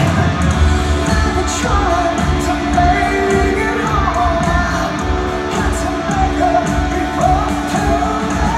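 Rock band playing live in an arena, heard from the stands: a male lead vocal sings over electric guitar, bass and a steady drum beat, with the hall's echo on the sound.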